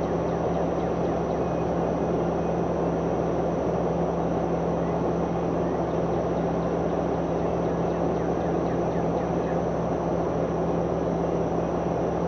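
An engine running steadily with a constant low hum, unchanging throughout.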